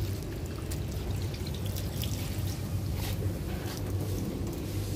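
Water running from a garden hose, trickling and splashing, over a steady low hum.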